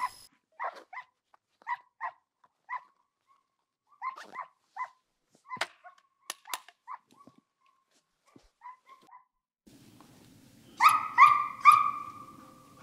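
Drever hound baying: a run of short barks, then three louder, more drawn-out bays near the end.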